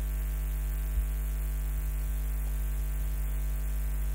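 Steady electrical mains hum, a low drone with a stack of even overtones, over a background hiss in the recording, with one faint tick about a second in.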